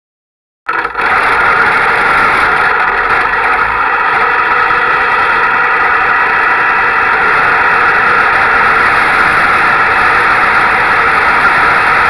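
Sprintcar V8 engine running steadily, picked up by a GoPro mounted on the car. The sound cuts in suddenly under a second in and holds an even, loud note with no revving.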